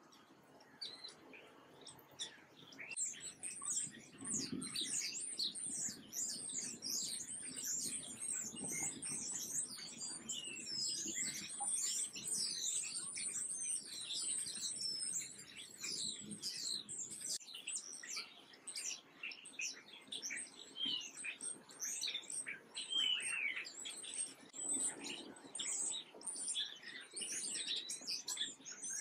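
A dense chorus of small birds chirping, many short, high chirps overlapping without a break; faint at first, it fills in about three seconds in.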